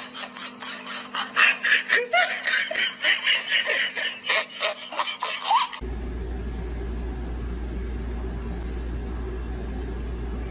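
Rapid, pulsing laughter for about six seconds, then a sudden cut to a steady low hum.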